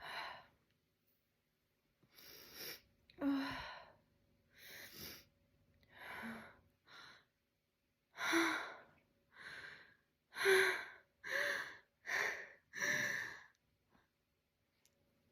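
A woman's breathy, gasping breaths, about a dozen of them and some with a little voice in them, coming closer together and louder in the second half: a sneeze building that does not come out.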